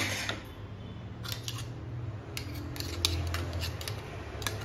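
Steel spoon scraping mashed beetroot and potato off a wire potato masher over a non-stick pan. It makes a string of short metal-on-metal clinks and scrapes from about a second in, over a low steady hum.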